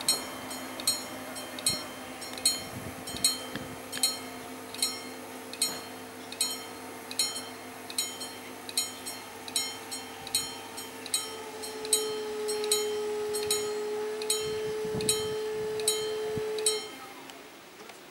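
Level-crossing warning bell ringing in regular strikes, a little over one a second, while the barriers lower, with a steady hum beneath. Bell and hum stop together about a second before the end, once the barriers are fully down.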